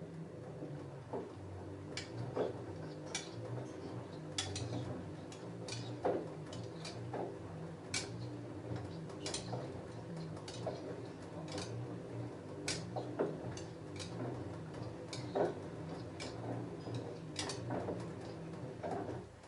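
LG F10A8HDS5 front-loading washing machine tumbling a load of jeans in the wash phase: a steady motor hum with irregular sharp clinks of the jeans' metal buttons and rivets against the drum. The drum turns for about nineteen seconds and stops just before the end.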